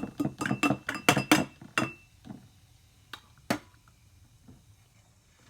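Eating utensil clinking against a plate: a quick run of sharp clinks over the first two seconds, then two single clinks a little later.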